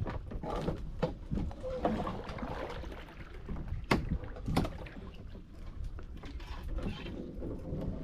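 Canoe being paddled, water sloshing against the hull, with two sharp knocks about four seconds in.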